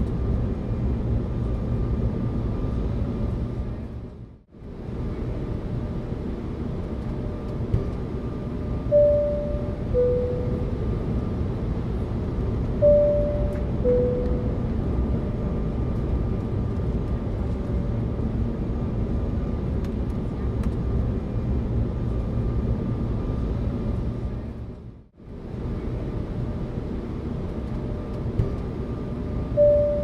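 Airliner cabin noise, a steady rumble and hiss, that briefly fades out and back in twice. The seat-belt sign chime sounds twice, about four seconds apart, each a two-note high-then-low ding-dong, and a third chime starts at the very end.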